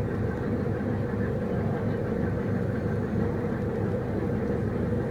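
Excursion motor ship's engine running with a steady low drone, heard from on deck.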